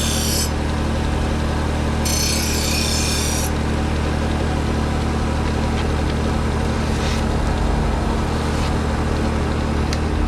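Bucktool 1x30 low-speed belt sharpener running with a steady motor hum, as a blade is drawn across the abrasive belt in two grinding passes: one ending about half a second in, another of about a second and a half starting about two seconds in. The belt then runs on unloaded.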